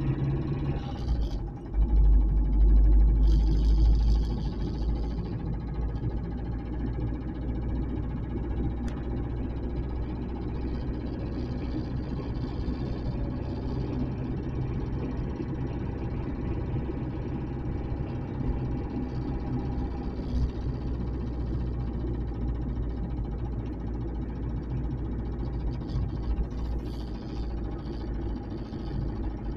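Car driving at steady speed: continuous engine and road noise, with a louder low rumble about two to four seconds in.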